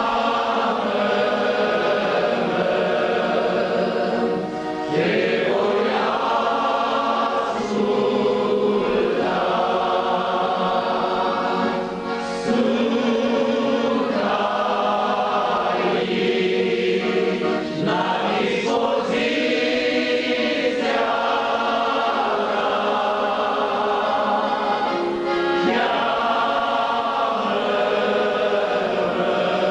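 Many men's voices singing a Romanian Pentecostal hymn together in long phrases, with brief breaks between them.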